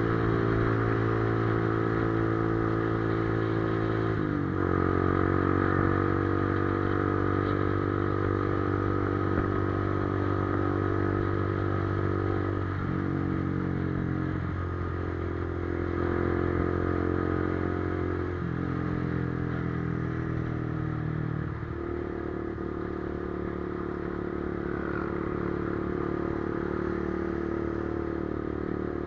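Motorcycle engine running at steady revs while being ridden, its pitch stepping to a new level a handful of times, like gear changes.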